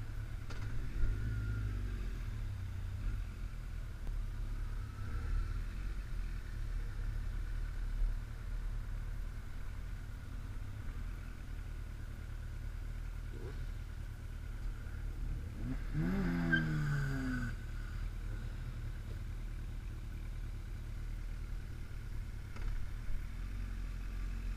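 Kawasaki ZX-14 sport bike's inline-four engine idling steadily, a low even rumble. About two-thirds of the way through, a vehicle engine revs up and falls back once.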